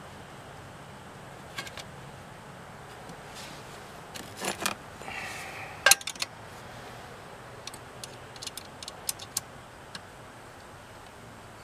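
Metal clinks and ticks of a combination wrench on the controller's mounting bolts and bracket as they are tightened. Scattered, with the loudest clink about six seconds in and a quick run of small clicks after it.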